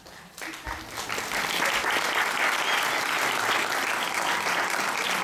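Audience applauding, rising quickly about half a second in and then holding steady.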